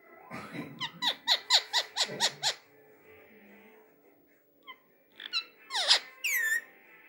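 Rose-ringed parakeet (Indian ringneck) calling: a fast run of sharp, falling squawks, about five a second for nearly two seconds, then after a pause a few more, ending in a long falling squeal.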